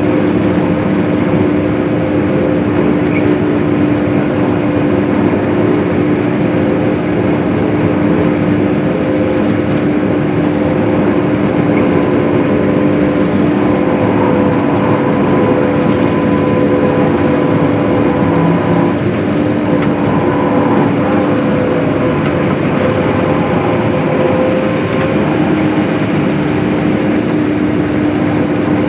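Case IH hay swather running steadily while cutting hay: a constant engine and drive drone with a steady hum that does not change.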